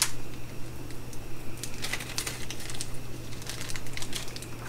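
Small stainless steel bolts and aluminum washers clicking against each other as they are handled and sorted in the fingers: light, irregular clicks over a steady low hum.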